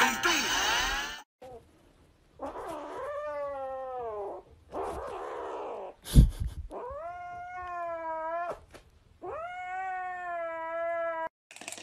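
A kitten yowling three times, each call long and drawn out, while it clutches a plush toy that a hand reaches for. A sharp thump comes just after the second call's start.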